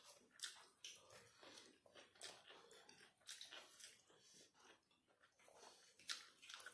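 Faint chewing and mouth smacks of people eating rice and chicken with their hands, heard as irregular soft clicks a few times a second.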